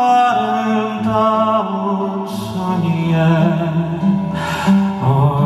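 Live band music between sung lines: bass and keyboard chords under a held melody note near the start, with two cymbal crashes, about two and four and a half seconds in.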